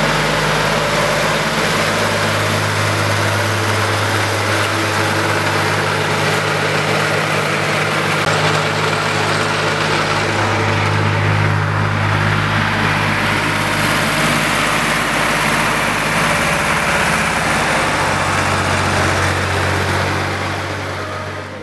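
Engine of a vintage farm tractor running steadily, its low hum shifting slightly in pitch now and then, fading near the end.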